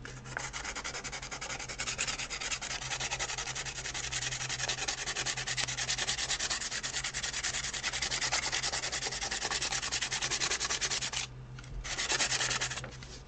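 Sandpaper rubbed by hand in quick back-and-forth strokes across the seam of a cured resin 3D print, taking the joint down level. The strokes stop briefly about eleven seconds in, then resume for a moment.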